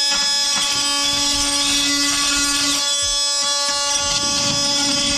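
Milwaukee oscillating multi-tool running steadily, its blade cutting through the tongue and groove between floorboards.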